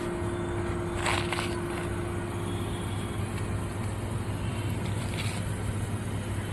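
Steady low machine hum with a constant higher tone over it, and a short hiss about a second in.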